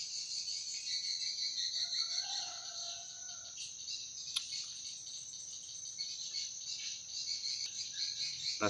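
Steady chorus of insects trilling at a high pitch, typical of crickets, with a faint short lower call about two seconds in.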